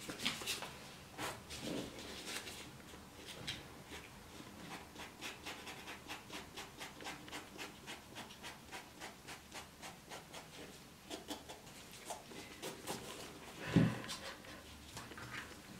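Sandpaper rubbed by hand over a faux-leather boot upper in quick, even back-and-forth strokes, scuffing off the flaking film. A dull knock near the end.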